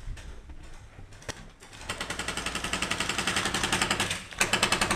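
Airsoft electric rifle firing a long full-auto burst of rapid, evenly spaced shots, starting about two seconds in and lasting a little over two seconds. A few more quick shots follow near the end.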